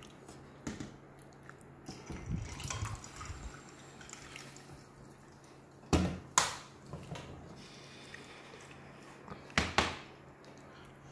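Water poured from a plastic drinking bottle into a glass mug of ice cubes, with a few sharp clinks of glass and ice: the loudest pair comes about six seconds in and another pair near the end.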